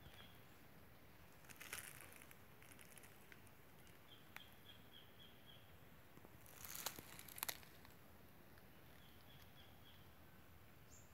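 Near-silent outdoor quiet with faint rustling crackles of leaves twice, about two seconds in and louder around seven seconds, and two faint runs of short, evenly spaced high chirps.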